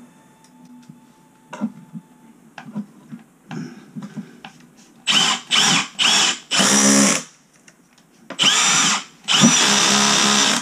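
Cordless drill driving a Tapcon concrete screw through a plastic toilet flange into a concrete floor: a few light knocks of handling, then three short trigger bursts and three longer runs of about a second each in the second half.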